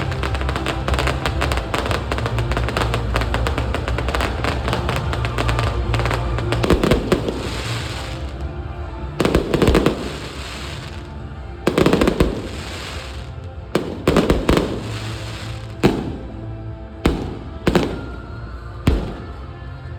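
Aerial fireworks: a dense barrage of rapid crackling bangs for the first eight seconds or so, then single shells bursting one every second or two, about eight in all. Music plays underneath.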